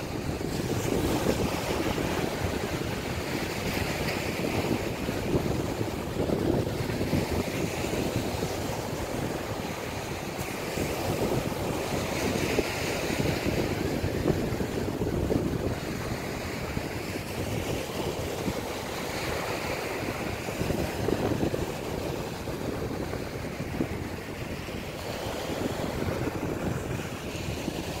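Small ocean waves breaking and washing up the beach, swelling every few seconds, over a low rumble of wind on the microphone.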